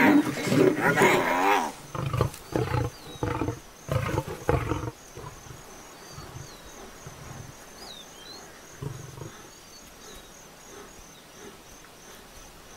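Lions growling loudly for the first two seconds, then a run of deep roaring grunts, about two a second, that stop about five seconds in. A quieter stretch follows with one more low grunt and a few faint bird chirps.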